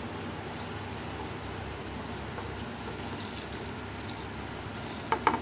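Pot of water at a rolling boil, bubbling steadily, as soaked rice is poured in near the end. Just before the end come a few sharp knocks.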